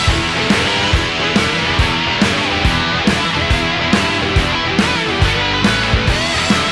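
Rock music with distorted electric guitar and a steady drum beat, about two hits a second.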